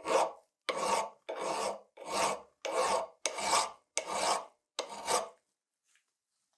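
Steel hand file rasping across a metal axe head held in a vise: eight even push strokes, about one and a half a second, then it stops. The filing smooths the axe head's repaired surface.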